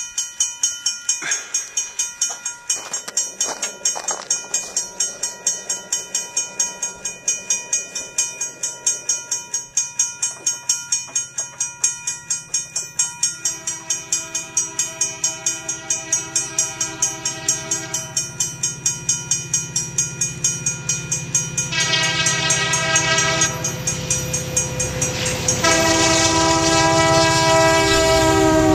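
Utah Railway MK5000C and SD50 diesel locomotives approaching on an upgrade, their engines rumbling louder as they near. The air horn sounds a long blast, then a short one, then a long one whose chord drops in pitch as the lead locomotive passes. A grade-crossing bell dings steadily, about three times a second, through most of it.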